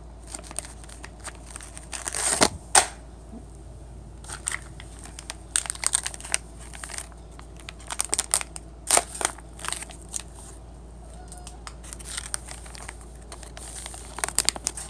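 Plastic cat-treat packaging crinkling and rustling as it is handled, in irregular crackly bursts.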